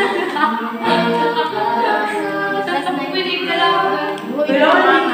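Several voices singing together without accompaniment, a small group singing a capella.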